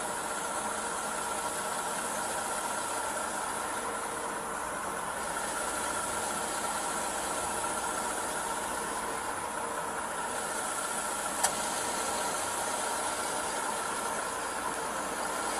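Steady hum of idling car engines, with a single sharp click about eleven seconds in.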